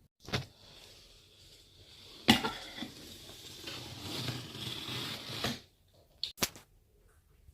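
Metal parts of a pillar drill being handled during assembly: a click, then a sharp metallic knock about two seconds in, followed by about three seconds of scraping and rustling, and two quick clicks near the end.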